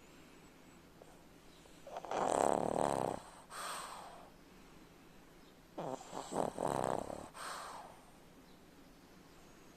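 A pug snoring: two snores about four seconds apart, the second broken into several short pulses, each followed by a softer breath out.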